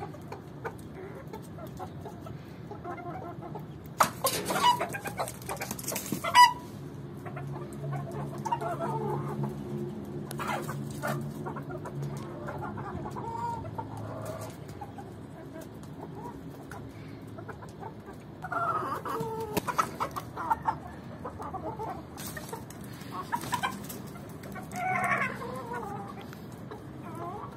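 A flock of hens and roosters clucking on and off, with busier calling about eighteen to twenty seconds in and again near the end. A loud flurry of sharp clattering comes about four seconds in, and a low steady hum runs under the middle stretch.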